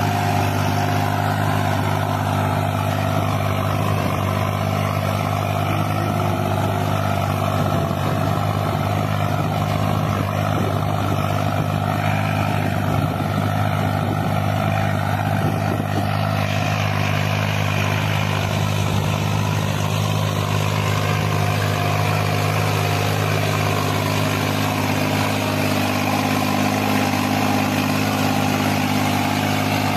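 New Holland 5620 tractor's diesel engine running steadily under load while pulling a tine cultivator through dry soil.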